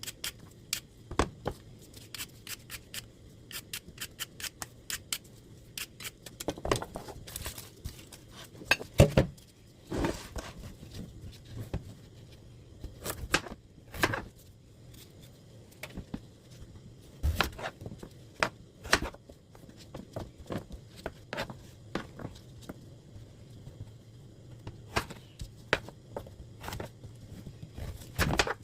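A kitchen knife cutting on a cutting board: irregular sharp clicks and taps, with a few louder knocks, over a faint steady low hum.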